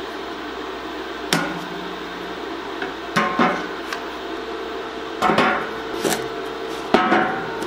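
Chipping hammer knocking slag off fresh stick welds on a steel tube frame: about eight sharp metal-on-steel strikes with brief ringing, irregularly spaced, several in quick pairs.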